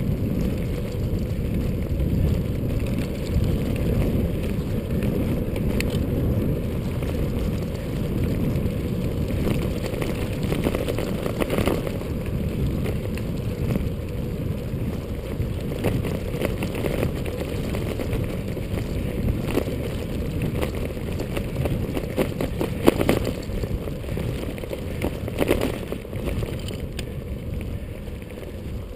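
Wind rushing over the microphone of a moving bicycle, with a steady low rumble of the tyres rolling on asphalt. A few short knocks from the bike break through, the loudest about two-thirds of the way in.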